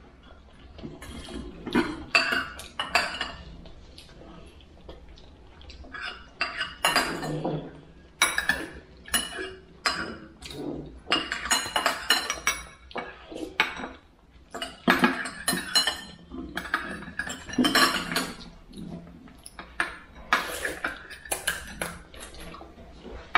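Cutlery clinking and scraping against dishes and bowls while eating, in irregular clusters of short clicks and clatters.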